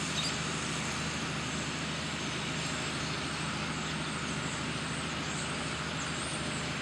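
Steady motor-vehicle noise, an even rumble and hiss, with a few faint high bird chirps, one near the start and a few near the end.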